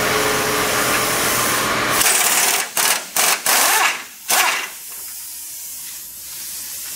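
Pneumatic air wrench running on long socket extensions, backing out a long bumper-mounting bolt, then about five short bursts as the trigger is blipped, and a quieter hiss of air near the end.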